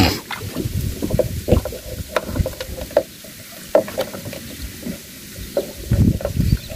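A small boat being paddled along: irregular splashes of water and light knocks against the hull, louder near the end.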